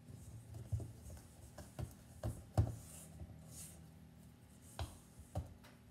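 Wooden spatula working heavy cookie dough in a stainless steel mixing bowl: scraping and squelching, with irregular knocks against the bowl, the loudest about two and a half seconds in.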